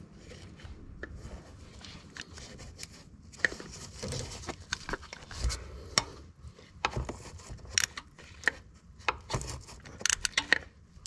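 Hand ratchet clicking and clinking irregularly on a spark plug socket as a spark plug is tightened, with a quick run of clicks near the end.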